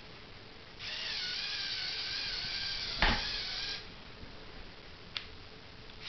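LEGO Technic electric motor whining as it drives the model's gears for about three seconds, with a sharp click just before it stops; a lighter click follows a little later.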